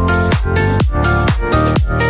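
Electronic dance music: a steady kick drum about twice a second under sustained synth chords.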